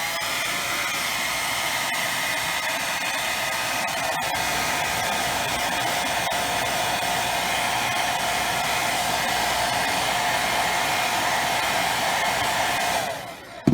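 Handheld hair dryer blowing steadily, a motor whine over the rush of air, then switched off about a second before the end and winding down, followed by a sharp click.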